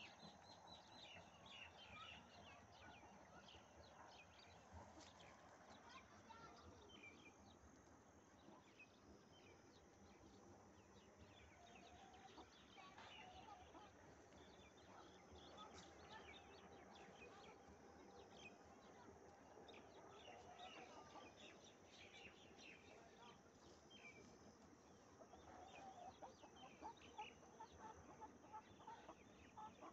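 Domestic hens clucking softly now and then, with many short high chirps scattered throughout; faint overall.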